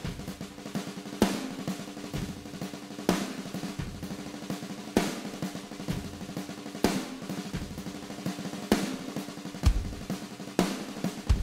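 Playback of a recorded kit's kick and snare, sample-replaced with Trigger 2. A strong hit comes about every two seconds, with fast quiet ghost notes on the snare in between. A few heavier kick hits come near the end.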